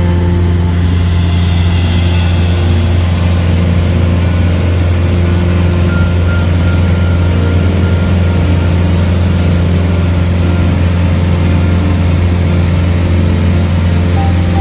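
Steady low drone of a light aircraft's piston engine and propeller in flight, heard inside the cabin.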